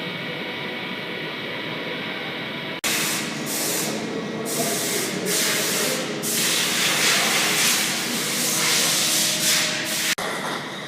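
Welding machine running with a steady hum, then a loud hissing spray-like noise that starts suddenly about three seconds in and cuts off abruptly near the end.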